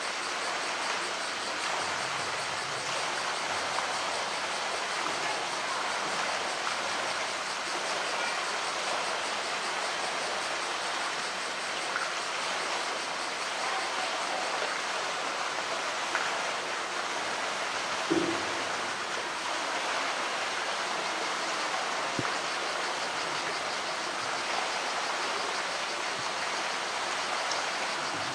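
Steady rush of water in a polar bear's pool as the bear swims and churns the surface. A single short knock comes about eighteen seconds in.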